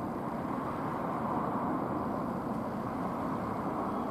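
Steady rumbling background noise of a rail yard, even in level with no distinct knocks or horns.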